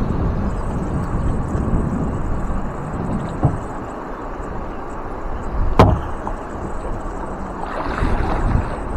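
Wind rumbling on the microphone while paddling on moving river water, with one sharp knock a little past halfway through and a smaller one a few seconds earlier.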